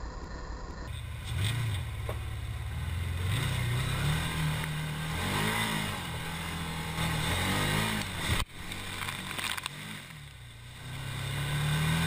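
ATV engine revving up and falling back again and again as it drives through a mud hole, with mud and water splashing around it.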